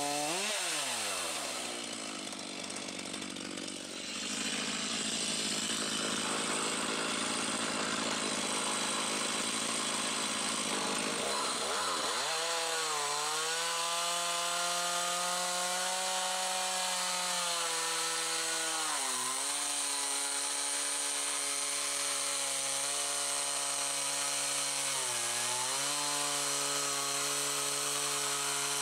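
Chainsaw engine running hard while cutting wood. Its pitch drops sharply about half a second in, then holds steady with three brief dips later on.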